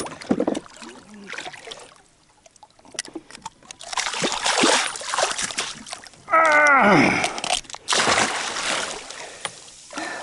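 Water splashing at a boat's side as a big red snapper thrashes at the surface while it is unhooked and released. A loud, drawn-out, voice-like sound that falls in pitch comes a little past the middle.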